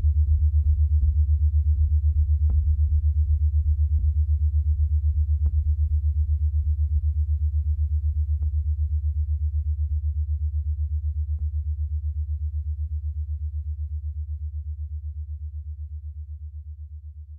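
Background music: a deep, fast-throbbing synthesizer bass drone with faint ticks about every second and a half, fading steadily away as the track ends.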